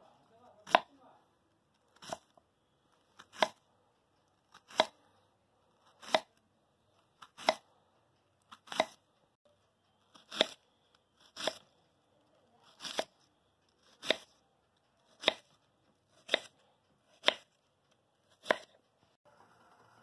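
Kitchen knife slicing a peeled raw banana into rounds on a wooden cutting board, each cut ending in a sharp tap of the blade on the board, about fifteen cuts at an even pace of a little under one a second.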